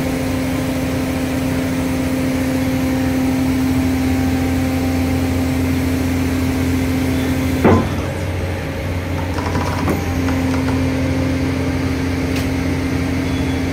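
Sany SH500 diaphragm-wall grab rig running, with a steady engine and hydraulic hum. A single sharp metallic clank comes a little over halfway through, and the steady tone drops out for about two seconds before returning.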